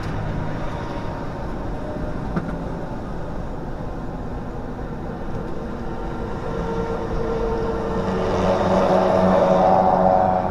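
Semi-truck's diesel engine and road noise heard inside the cab while driving, getting louder about eight seconds in.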